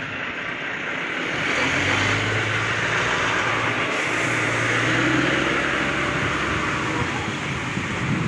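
A motor vehicle's engine running, getting louder about a second in and then holding a steady low hum with road noise.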